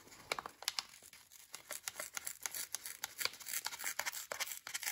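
Brown kraft-paper wrapping crinkling and crackling in the hands as its sticker seal is picked at and peeled off: a quick run of small, irregular crackles.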